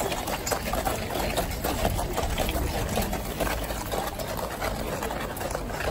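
Outdoor crowd noise: faint scattered voices mixed with a dense run of small clicks and scuffs, with a low rumble underneath.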